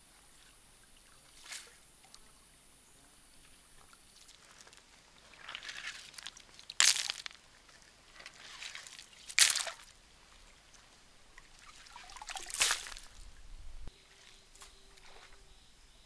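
Hands splashing and sloshing water in a shallow, rocky stream pool: a series of separate splashes, the loudest about seven and nine seconds in.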